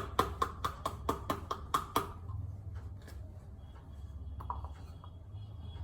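Quick, even taps on the rind of a cut pomegranate piece, about five a second, knocking the seeds out. The tapping stops about two seconds in, and only a few faint ticks follow.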